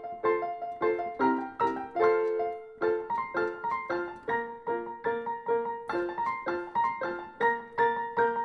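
Background piano music: a simple tune of evenly spaced notes, about three a second, each struck and fading.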